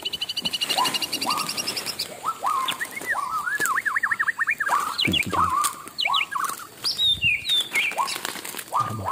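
Forest birds calling over and over with short rising, chirping notes, with a rapid high trill in the first couple of seconds. Rustling and crunching of dry leaf litter underfoot is mixed in.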